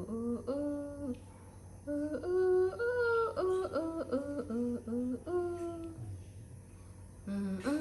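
A person humming a wordless tune: a run of short held notes stepping up and down in pitch. There is a brief pause about a second in, and a quieter stretch near the end before the humming picks up again.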